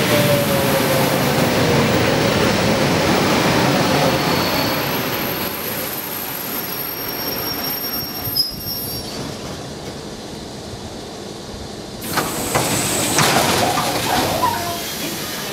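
A train passing on the line: loud rolling wheel-and-rail noise that fades away over several seconds, with a faint falling tone early on. About twelve seconds in, a sudden burst of noise lasts a few seconds.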